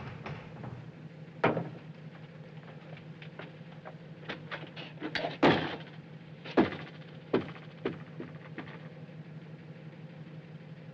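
Handling noises in a small room: scattered knocks and clinks over a steady low hum. The sharpest come about a second and a half, five and a half and six and a half seconds in.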